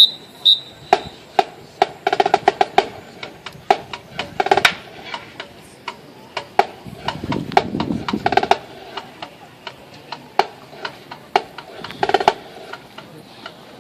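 Marching band drums: scattered single snare strikes and several short rolls at an uneven pace, not yet a steady beat, with a low rumble of bass drum or crowd noise briefly near the middle.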